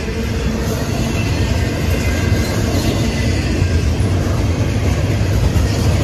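Double-stack intermodal well cars of a freight train rolling past at speed: a steady, loud rumble of steel wheels on the rails, heaviest in the low end.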